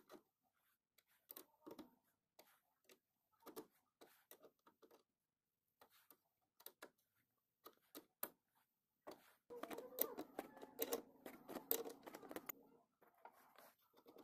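Faint metallic clicks and taps of a small open-end wrench and a nut being worked onto a threaded bolt, with a denser run of rapid clicking and clatter lasting about three seconds past the middle.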